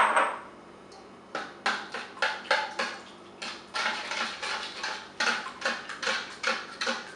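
A sharp knock on a stainless steel mixing bowl, then wet batter of eggs, margarine and yeast being mixed in the bowl: short repeated swishing and scraping strokes, about three a second.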